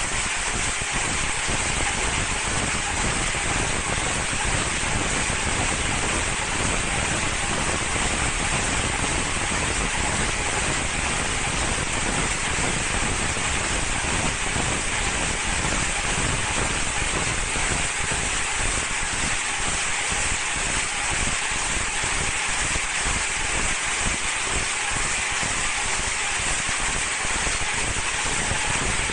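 High-speed film slitting and rewinding machine running, winding clear plastic film onto rolls: a steady, even hiss that does not change.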